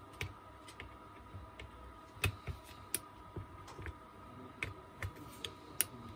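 Irregular light clicks and taps from small hand work on an angle grinder's internal parts, about a dozen sharp ticks spaced unevenly.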